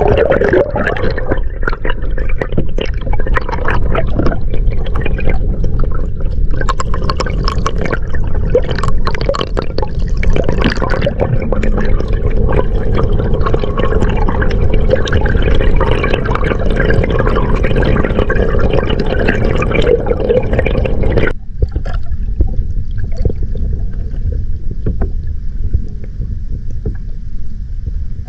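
Water rushing and gurgling over a submerged camera, heard from underwater: a loud, muffled, low rush scattered with small clicks and crackles. About three-quarters of the way through the higher part cuts off suddenly, leaving a duller low rumble.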